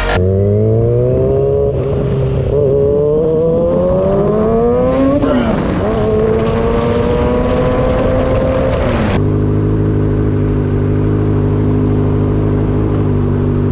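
A vehicle engine pulling under acceleration, its pitch rising steadily for about five seconds, dipping briefly as at a gear change, then holding steady. About nine seconds in it cuts abruptly to a lower, constant engine hum.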